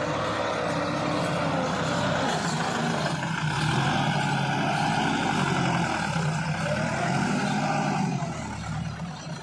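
Massey Ferguson 385 tractor's diesel engine running hard under load as it works its front loader, the revs rising and falling, then easing off near the end.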